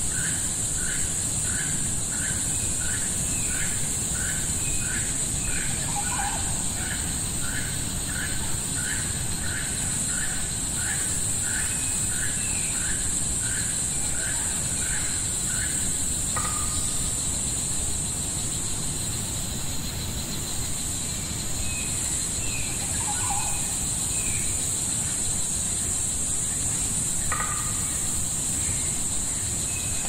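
Tropical rainforest ambience: a steady high-pitched insect drone under bird calls. For the first half a short call repeats about twice a second, then stops abruptly, leaving scattered higher chirps.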